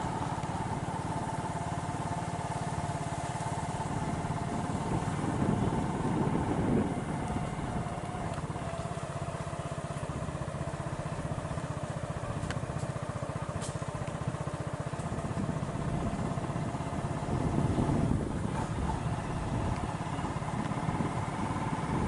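Vehicle engine running steadily while driving along a road, with low road and wind rumble. The rumble swells louder twice, about a third of the way in and again near the end.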